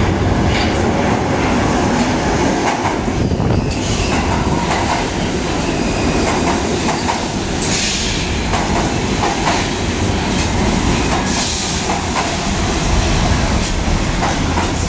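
An R68 subway train pulling into the station and running alongside the platform: a loud, steady rumble with wheels clattering over rail joints and a few short high hisses or squeals.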